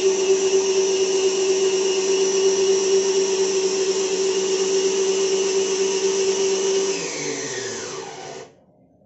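Small electric tipper motor of a handmade RC Hino dump truck raising the dump bed: a steady, high-pitched motor whine that drops in pitch about seven seconds in and stops about a second later.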